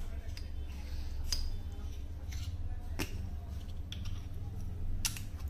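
Plastic diffuser caps being handled, pulled off and pushed onto the head of a rechargeable LED torch: a handful of scattered sharp plastic clicks and taps over a steady low hum.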